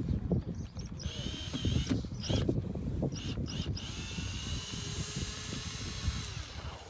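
Cordless drill running in a few short bursts, then steadily for about three seconds before it stops, as the bit works into the boat's bow.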